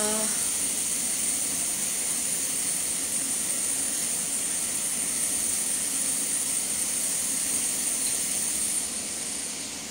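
Steady hiss of gas stove burners under lidded pots of simmering food, dropping noticeably about nine seconds in as a burner is turned down.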